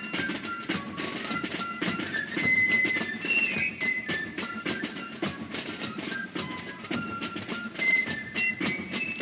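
Background music: a high, whistle-like melody of short notes stepping up and down over a quick, clicky beat.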